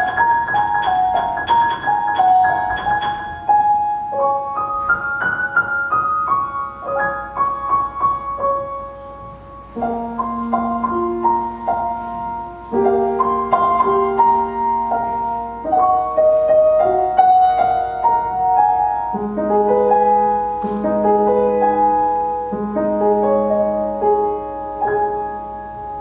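Piano music with no singing. A light melody is played in single notes for the first ten seconds, then fuller chords join with held lower notes.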